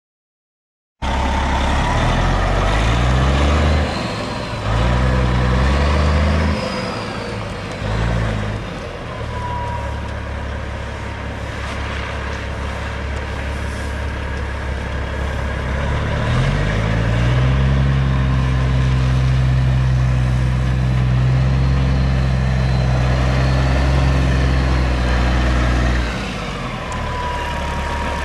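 Caterpillar 3406E inline-six diesel of a Peterbilt 379 semi truck running: revved up and down in short steps at first, then settling to idle, raised to a steady higher speed about halfway through, and dropped back to idle near the end.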